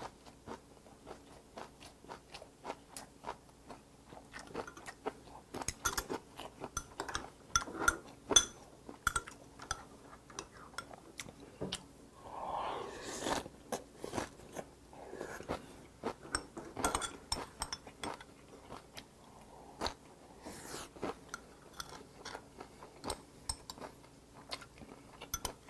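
Close-miked mouth sounds of a person chewing grilled pork belly and kimchi: many short wet clicks and crunches, with a longer noisy sound about twelve seconds in as a new bite goes in.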